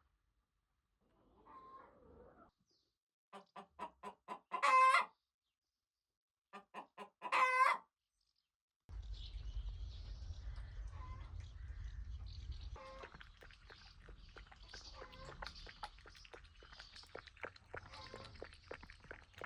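Domestic hens cackling: twice, a quick run of short clucks builds into a loud drawn-out squawk. From about nine seconds a low rumble comes in, under a steady run of clucking.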